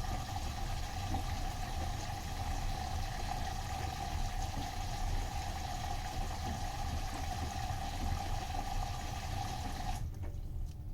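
Bosch front-loading washing machine taking in water: a steady rush of water with a constant hum. The inflow cuts off suddenly near the end, leaving a low rumble.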